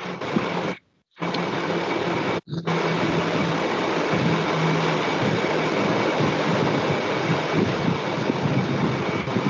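Steady rushing background noise with a faint, wavering low hum, heard through a video call. It cuts out completely twice near the start, once for about half a second.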